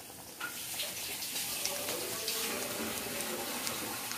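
Breaded chicken cutlets deep-frying in hot coconut oil in a kadai: a steady sizzle with fine crackles, growing louder about half a second in.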